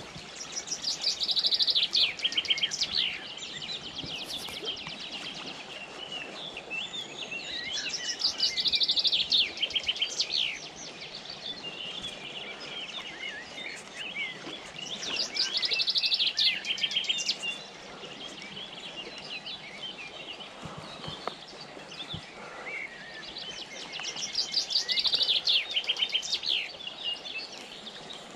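A songbird singing four times, each song a quick run of high, repeated notes lasting two to three seconds, over a steady rush of flowing river water.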